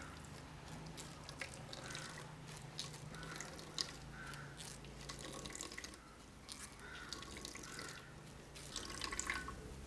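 Coconut milk dripping and trickling as ground coconut paste is squeezed through a strainer: faint, irregular drips and small splashes.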